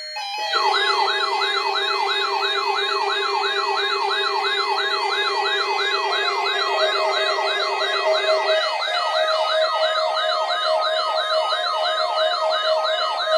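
NOAA weather radio alarm sounding for a weekly test: a loud electronic siren-like tone warbling rapidly, about two and a half sweeps a second, over a steady lower tone that shifts to a higher pitch about two thirds of the way through.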